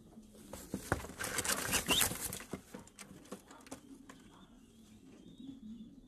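Fancy pigeons in a cage: a burst of rustling and scuffling with sharp knocks, starting about half a second in and dying down by about three seconds, then low cooing near the end.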